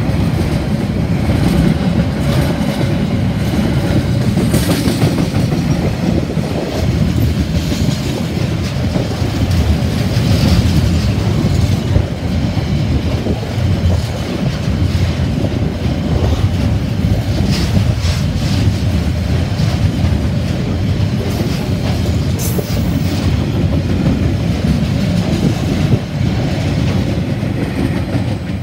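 Wagons of a long freight train rolling past close by: a steady loud rumble of wheels clattering over the rail joints, with a brief high wheel squeal now and then.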